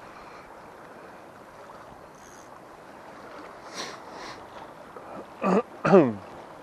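Steady wash of the sea and wind at a breakwater, with two soft rustles around the middle. Near the end come two short loud calls close together, each falling in pitch.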